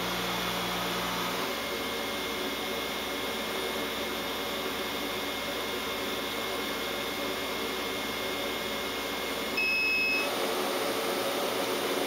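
Steady machine hum with several held tones, and a single short electronic beep just before ten seconds in.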